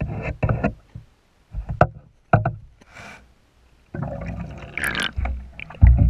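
Underwater camera housing knocking and bumping as the camera is hauled up through the water, with scattered knocks at first and then a louder stretch of water rush and rattling from about four seconds in. A heavy low thump comes near the end.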